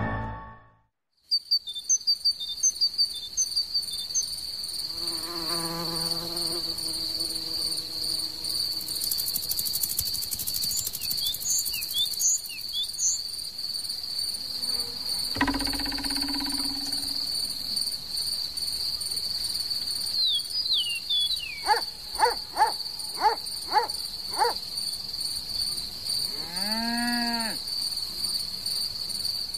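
A steady, high-pitched insect trill runs without a break. Over it come short clicks near the start, a run of six short pitched calls about two-thirds of the way through, and one squeak that rises and falls near the end: cartoon insect sound effects.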